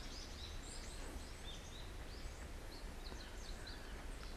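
Small birds chirping repeatedly in short calls over a steady low outdoor rumble.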